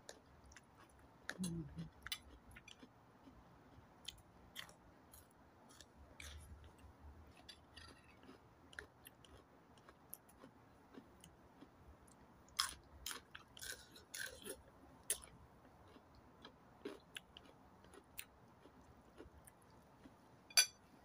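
Close-up eating sounds: chewing and wet mouth clicks, faint, with a scatter of short sharp clicks that bunch together about two-thirds of the way in.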